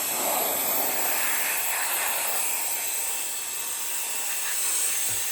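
Cordless electric air duster with a 130,000 RPM brushless turbo fan motor running steadily: a high-pitched whine over a rush of blowing air.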